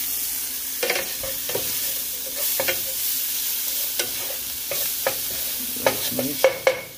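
Bacon, onions and peppers sizzling in a hot pan with a steady high hiss, while a utensil clicks and scrapes against the pan every second or so as the mix is stirred.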